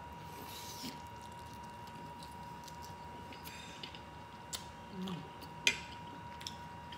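A smoked turkey leg in sauce being bitten and chewed with wet mouth sounds: a tearing bite in the first second, then chewing with scattered sharp clicks and smacks, the loudest about five and a half seconds in.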